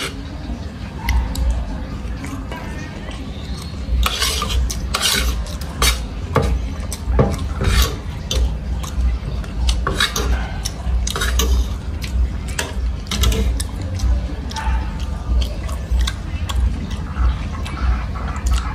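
Metal spoon and fork clinking and scraping on a plate as rice is scooped up, in short irregular strokes over a steady low hum.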